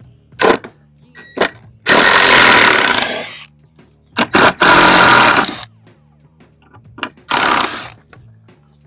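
Handheld power drill run in repeated trigger bursts, several short blips and three longer runs of a second or so, with faint background music underneath.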